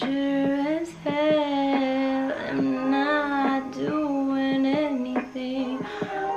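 A woman singing freestyle, holding long notes that waver slightly in pitch, in short phrases.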